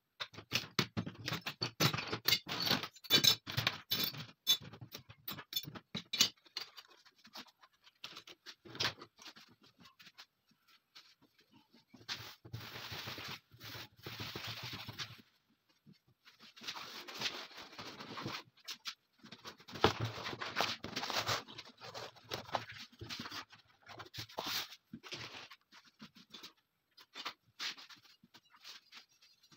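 Small steel parts of a stripped TT pistol clicking and clattering as they are handled and gathered into a plastic tray. Later comes a stretch of sliding and rustling as a large sheet is spread over the table.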